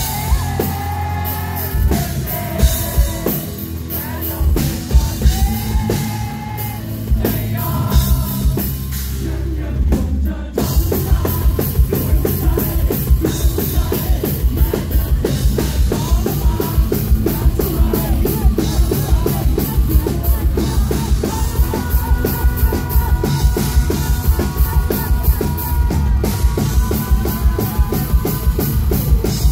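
Live rock band with a male singer, electric guitar and drum kit playing loud through a PA. The first ten seconds carry sung lines; about ten seconds in the whole band comes in harder with a fast, steady drum beat.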